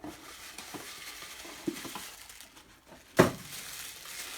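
Handling noise from cosmetic packaging: steady rustling and scraping with a few light clicks, and one sharp knock a little over three seconds in.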